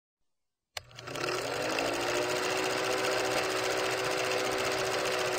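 Sound effect of a film projector starting up with a click, its motor whine rising briefly, then running steadily with a fast mechanical clatter.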